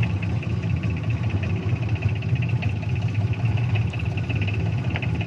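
Fishing boat's engine running steadily, a low continuous hum with a fainter high whine above it.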